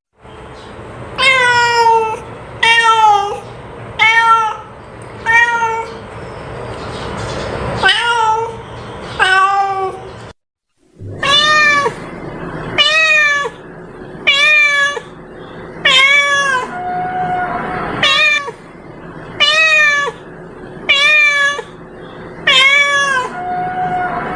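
A cat meowing over and over, about one meow a second, each call falling in pitch at its end. The sound cuts out completely for a moment about ten seconds in.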